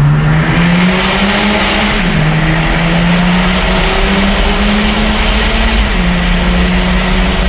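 A BMW 325d's 3.0-litre six-cylinder diesel accelerating through the gears through a custom stainless de-cat twin-exit exhaust, in a road tunnel. The engine note climbs, drops at an upshift about two seconds in, climbs again, and drops at another shift near the end, then holds steady.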